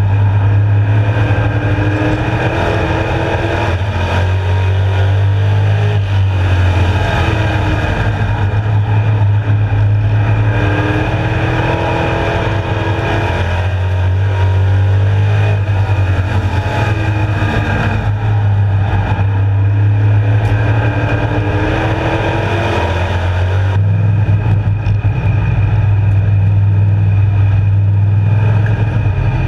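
Street stock race car's engine at racing speed, heard from inside the cockpit, its pitch rising and falling over and over as the driver accelerates and lifts.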